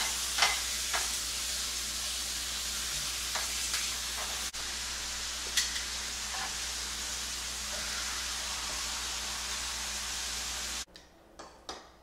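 Marinated beef searing on a very hot ridged stovetop grill pan, a steady sizzle with a few light clicks of metal tongs against the pan. The sizzle cuts off abruptly near the end.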